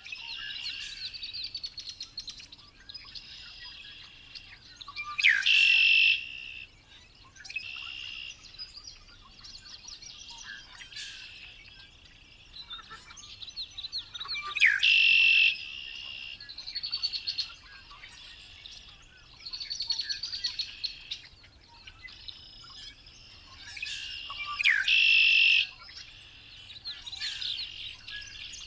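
Male red-winged blackbird singing its conk-la-ree song three times, about ten seconds apart, each ending in a loud buzzy trill. Softer bird calls and chatter fill the gaps between songs.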